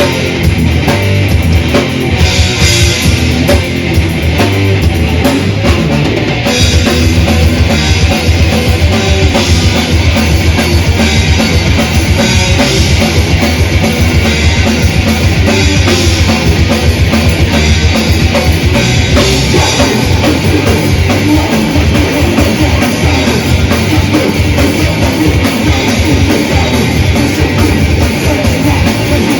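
A death/thrash metal band playing live: distorted electric guitars, bass and a fast-hit drum kit. The playing grows louder and denser about six seconds in.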